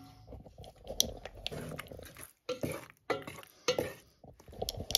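Wooden spatula stirring sauced pasta shells in a coated cooking pot: irregular wet stirring strokes, with a few sharp knocks of the spatula on the pot, one about a second in and two near the end.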